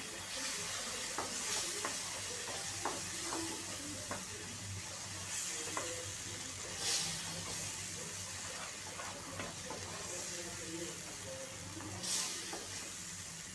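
Onion-tomato masala sizzling in a non-stick pan while a spatula stirs and scrapes through it, with small clicks of the spatula on the pan. The spices are being fried (bhuna) with a splash of water so they don't burn.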